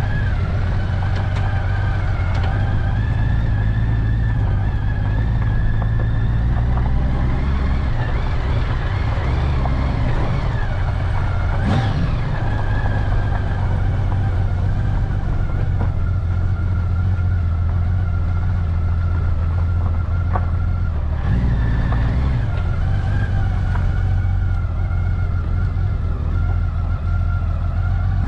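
Honda Valkyrie Interstate motorcycle's flat-six engine running at low, steady revs while the bike rolls slowly along.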